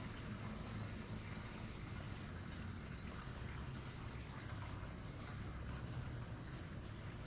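Steady trickle of running water with a low steady hum underneath.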